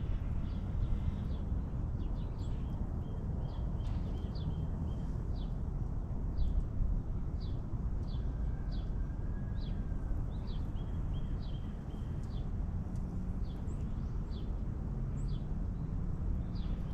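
A songbird calling over and over with short, high, downward-slurred notes, one every half second to a second, over a steady low background rumble.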